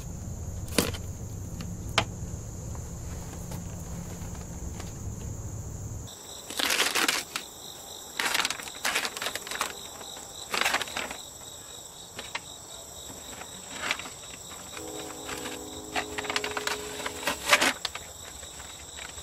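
A plastic moisture-barrier sheet being pulled off a car's inner door frame, crinkling and rustling in repeated short bursts from about six seconds in, after a couple of sharp clicks. Insects keep up a steady high drone behind it.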